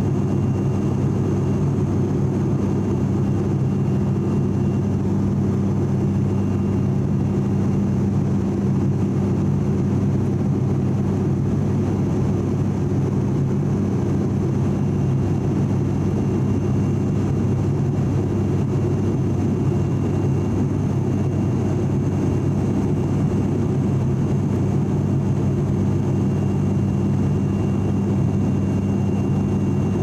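Steady cabin drone of an ATR 42-600 turboprop in flight, heard from inside the cabin beside the propeller: its Pratt & Whitney PW127 engines and propellers give a loud, even low hum with a faint high whine above it.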